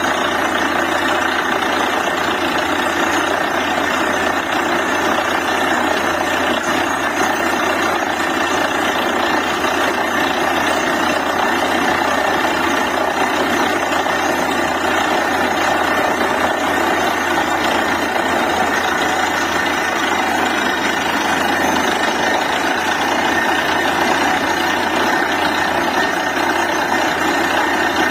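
DTH borewell drilling rig's diesel engine and machinery running steadily and loudly.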